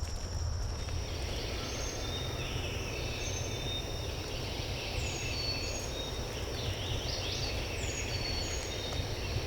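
Songbirds singing in the woods: many short, high chirps and quick falling whistle notes, more of them after the first couple of seconds, over a low rumble of wind on the microphone.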